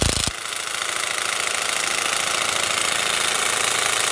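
Milwaukee M12 3/8-inch cordless impact wrench hammering in reverse on a truck lug nut that will not break loose. About a third of a second in, the heavy low blows drop away and the tool keeps running with a lighter, higher buzz. It is on power setting 1 with a nearly flat battery, too weak to free the nut.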